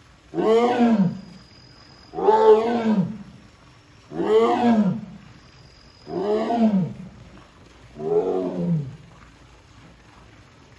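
Amur tiger calling five times, about two seconds apart, each call about a second long, rising then falling in pitch: a tigress calling for her keeper.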